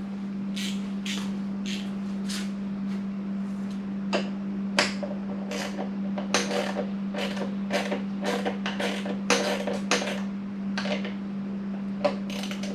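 Irregular sharp metallic clicks and clinks of a 10 mm ratchet and hand tools working on a motorcycle's mirror mounting bolts, some with a short ring, over a steady low hum.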